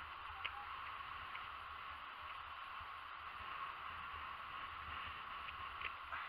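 Small wind-driven waves washing onto a sandy shore in a steady wash, with a low wind rumble on the microphone and a few faint clicks.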